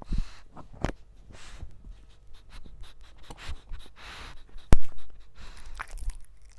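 English bulldog snoring: a run of rasping, noisy breaths about every second and a half. A sharp click stands out a little before the five-second mark, and a fainter one comes about a second in.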